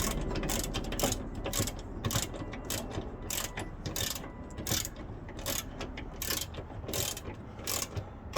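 Socket ratchet clicking as it turns in short strokes, about two clicks a second, snugging down the 10 mm bolts of a car hood latch.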